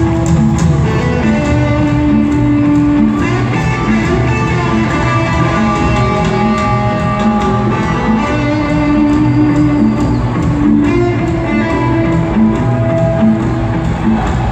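Live rock band playing loud and steady in an arena, electric guitars to the fore over bass and drums.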